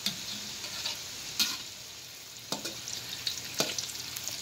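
Battered banana pieces deep-frying in hot oil in a wok, a steady sizzling. A metal spatula and wire strainer knock against the wok about five times.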